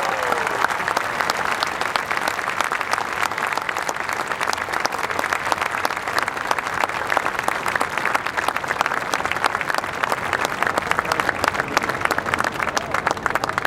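A large audience applauding, with dense, even clapping that holds steady throughout.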